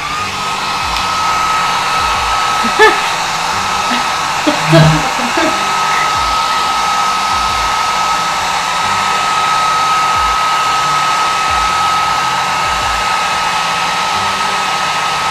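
Hair dryer switched on: its motor whine rises briefly as it starts, then it blows steadily at full speed. There are a couple of brief knocks a few seconds in.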